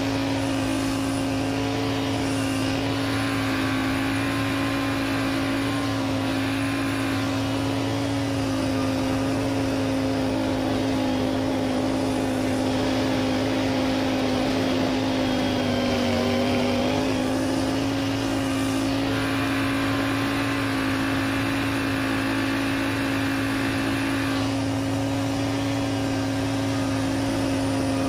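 John Deere X570 lawn tractor engine running steadily at working speed, driving its front snowblower attachment, with the hiss of snow being churned and thrown swelling and fading. About halfway through, the engine's pitch dips briefly as it takes a load. The sound is played back at double speed.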